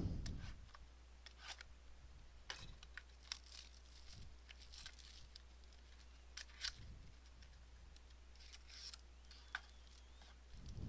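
Faint scattered snips, rips and crinkles of the plastic wrap on sealed boxes of trading cards being cut and torn open.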